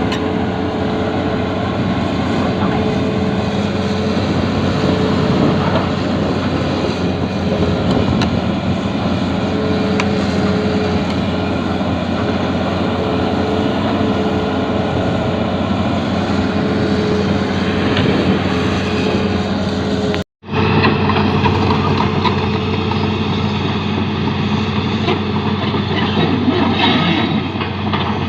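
Excavator's heavy diesel engine running steadily, with a brief total dropout about twenty seconds in.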